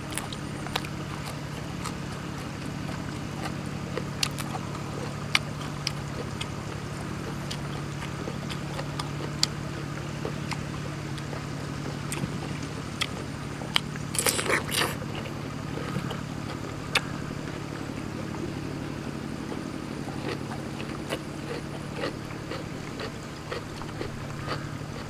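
Close-up eating sounds: wet mouth clicks and chewing, with a crunchy bite into a fresh cucumber about fourteen seconds in. A steady low engine drone runs underneath.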